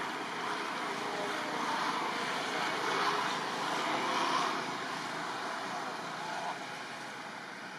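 Steady outdoor background noise with no clear single source, a little louder around three to four seconds in, with a faint steady high tone underneath.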